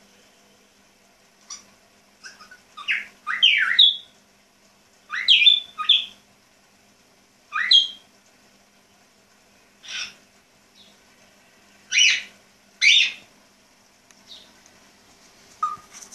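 African grey parrot giving a string of short whistles and chirps, several sweeping upward in pitch, spaced a second or two apart with pauses between.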